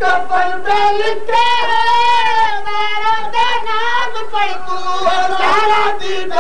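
A single high-pitched voice in sung majlis recitation, holding long wavering notes that slide up and down, with short breaks between phrases.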